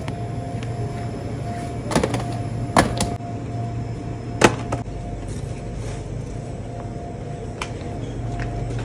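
Steady low mechanical hum with a faint steady tone above it, broken by a handful of sharp clicks and knocks, the loudest about four and a half seconds in.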